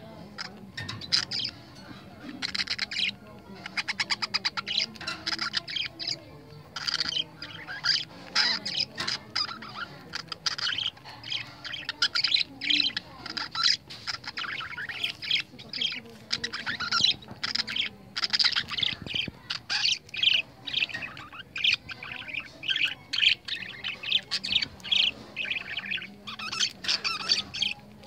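Budgerigars chirping and chattering in quick, high-pitched runs of chirps, near-continuous with short pauses.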